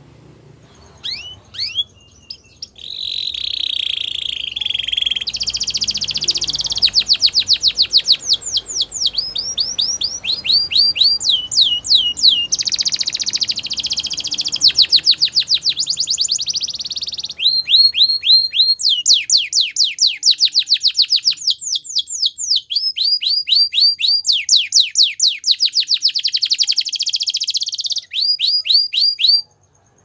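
Canary singing a long, unbroken song of rapid trills, each a fast run of repeated falling notes, moving from one trill speed to another phrase by phrase. The song stops abruptly just before the end.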